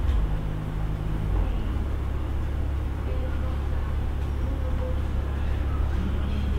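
A steady low rumble under a faint background hiss.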